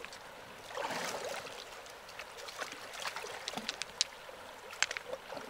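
Boots wading through a shallow river: water sloshing around the legs, with a scatter of small splashes over the steady sound of the current.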